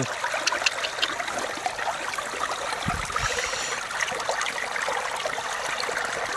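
Steady trickle of running water with scattered small clicks, and a low thump about three seconds in.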